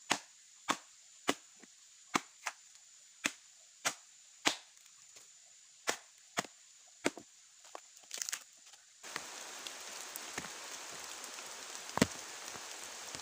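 Bolo blade chopping into a log: a dozen or so sharp, separate chops, roughly one every half second to second. About nine seconds in the chopping stops abruptly and a steady hiss of background noise takes over, with a single knock near the end.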